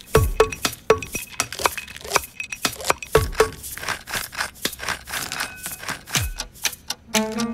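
A rhythmic beat built from kitchen sounds: quick clinks, clicks and crinkles set to a steady pulse, with a deep thump that drops in pitch about every three seconds. Near the end, plucked-string music comes in.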